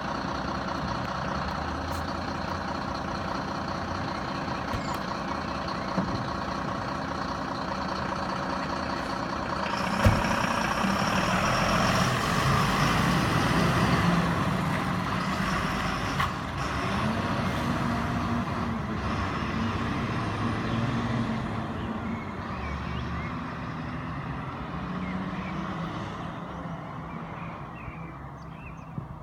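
Diesel engine of a fire service aerial ladder truck running as the truck pulls out. A sharp pop comes about ten seconds in, after which the engine gets louder, and it then fades gradually as the truck moves off.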